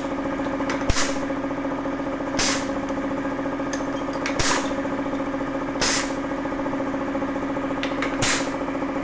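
Fully automatic button-pin press machine running: a steady hum with five short hisses, about one every one to two seconds, and light clicks as it cycles through pins.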